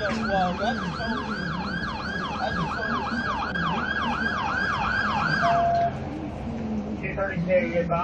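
Police car siren in a fast yelp: quick falling sweeps in pitch, about three a second, that stop about six seconds in.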